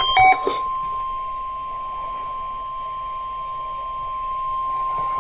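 NOAA Weather Radio's 1050 Hz warning alarm tone: one steady, high, pure tone sent as the tone-alert part of the weekly test. A run of short beeps at several pitches ends about half a second in.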